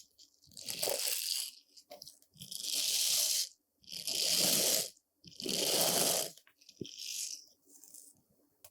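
Brush bristles sweeping across a surface in slow strokes, about five strokes of roughly a second each with short pauses between, the last one softer.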